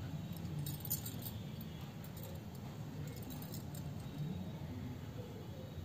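Faint light clinking and rustling of hands working yarn with a crochet hook, making chains, over a low steady background hum.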